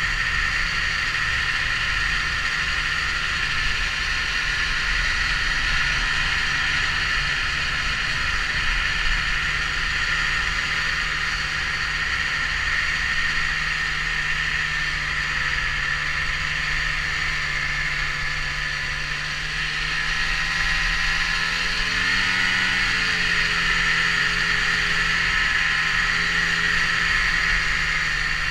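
Snowmobile running steadily along a groomed trail, its engine note and a high whine holding even, heard from the handlebars. A little over two-thirds through, the engine pitch rises briefly, then holds slightly higher.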